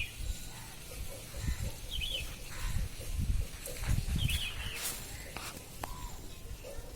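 A baby bird giving a few short, high chirps, one about two seconds in and another about four seconds in, over irregular low thumps and rumbling.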